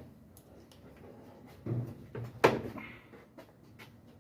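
Knocks and clicks from parts and tools being handled while a washing machine is reassembled: a dull thud, then a sharp knock about two and a half seconds in, followed by a few light clicks.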